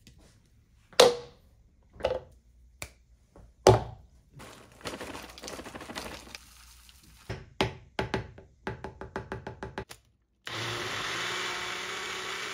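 Plastic containers knocked down on a stone counter, blueberries rattling as they are poured into a plastic single-serve blender cup, and a quick run of clicks. Then, about ten and a half seconds in, a personal blender motor starts and runs steadily, blending the berries into a smoothie.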